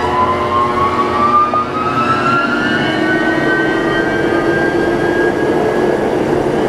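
Sawmill machinery starting up: an electric motor's whine rises steadily in pitch as it winds up to speed and levels off about halfway through, over a steady hum of running machinery.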